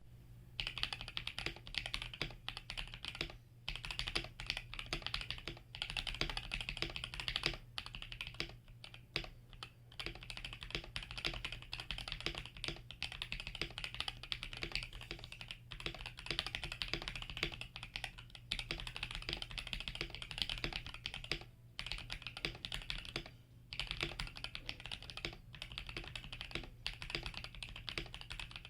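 Typing on a 67lite mechanical keyboard with Krytox 205-lubed Durock L7 linear switches, Durock v2 stabilizers and HK Gaming BoW keycaps: a steady, uneven run of keystroke clacks with a few brief pauses.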